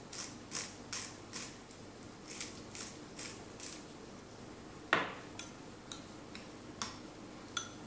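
Hand-twisted spice grinder grinding seasoning over a bowl, in a run of short grinding strokes about two or three a second. About five seconds in comes a sharp knock, followed by a few light clicks of a spoon against the bowl as the mix is stirred.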